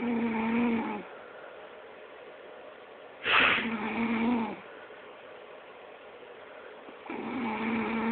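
A person snoring: three snores about four seconds apart, each a droning buzz a little over a second long on a steady pitch. The middle snore starts with a loud rasping snort.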